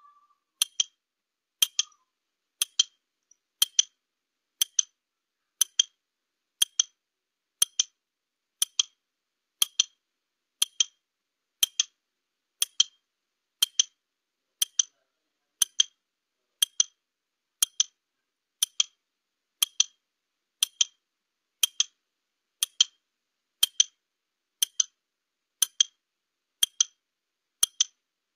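Countdown-timer clock ticking, one sharp tick about every second, timing the 30 seconds given to answer a question.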